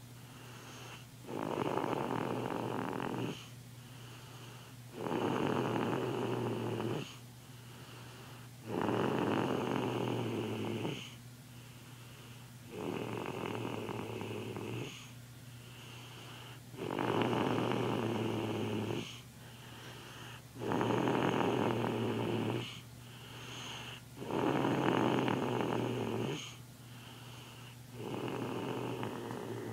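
A young child snoring in sleep: eight loud, rough snores of about two seconds each, one every four seconds or so, with quieter gaps between.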